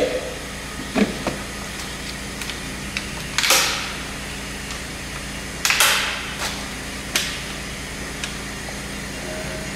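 Plastic air-cleaner parts of a Kubota tractor being handled and fitted: scattered clicks and knocks and two short scraping rustles over a steady low hum.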